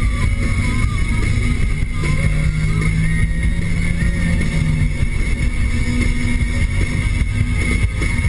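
2013 Nissan Sentra SR's four-cylinder engine and CVT held at high revs, heard from inside the cabin under heavy road and wind noise, with a thin steady whine over it. A low steady hum in the engine note drops away about five seconds in.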